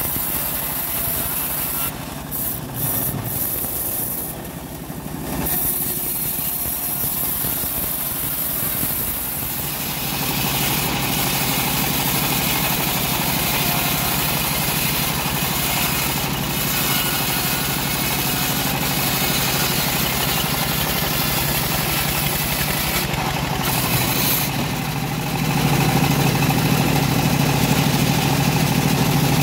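Homemade band sawmill running and sawing old teak: a steady machine drone, with the cutting noise growing fuller about ten seconds in and the low drone heavier near the end.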